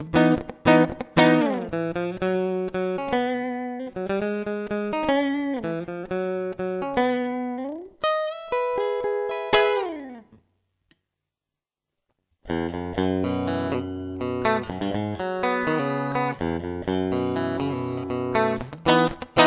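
1995 Fender American Standard electric guitar played as a sound test, with picked single notes and chords ringing and some notes sliding in pitch. The playing stops for about two seconds midway, then picks up again.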